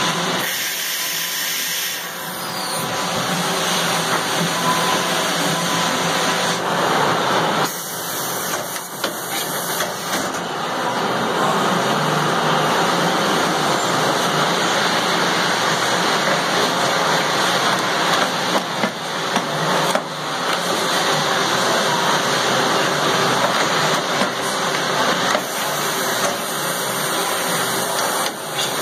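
Kiwa KH-45G CNC horizontal machining center running, with a steady loud hiss like air or coolant spray and a few short knocks scattered through.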